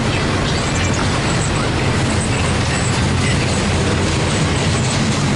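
CSX intermodal train's double-stack container well cars rolling past: a steady rumble and rattle of wheels on rail, with brief high-pitched squeaks now and then.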